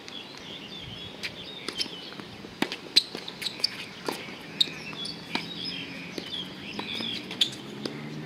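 Tennis ball struck by rackets and bouncing on a hard court: sharp knocks a second or so apart, the loudest about three seconds in. Birds chirp throughout, and a low steady hum comes in near the end.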